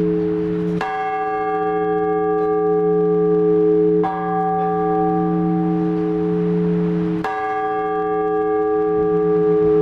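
Orthodox church bells rung slowly: three strokes about three seconds apart, each ringing on over the deep, lasting hum of the bells.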